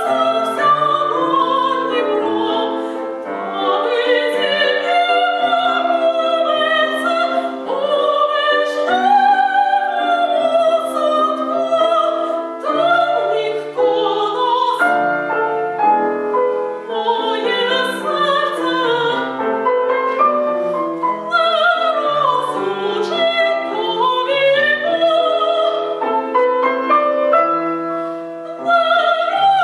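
A female classical voice singing with vibrato over piano accompaniment.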